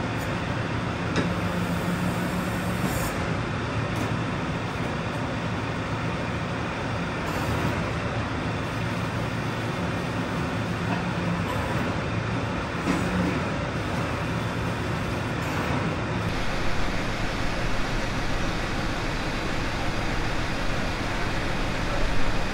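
Farm tractor's diesel engine running steadily at idle while the machine stands still with the implement on its three-point hitch. A few light knocks come near the end.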